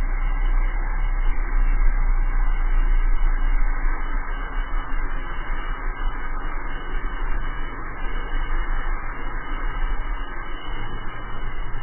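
Steady rushing noise of an unpowered drift trike coasting fast downhill: wind buffeting the handlebar camera's microphone over a low rumble from its wheels rolling on asphalt, a little quieter from about four seconds in.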